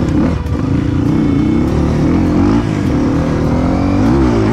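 Dirt bike engine revving up and down under throttle while riding off-road, its pitch rising and falling quickly several times near the end.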